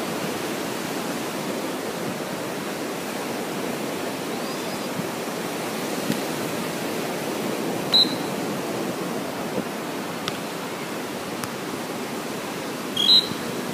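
Steady rushing wash of surf and wind at the beach, with two brief high-pitched chirps about eight and thirteen seconds in.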